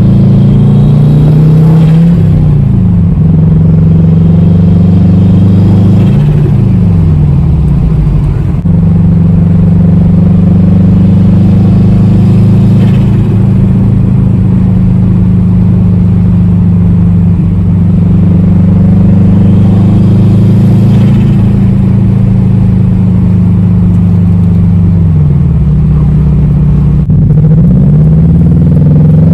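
Subaru WRX's turbocharged flat-four engine under way, its note mostly steady and dropping then climbing again a few times, as at gear changes. Faint hissing flutter from the aftermarket blow-off valve comes with the throttle lifts, thin because boost is only around 6–7 psi.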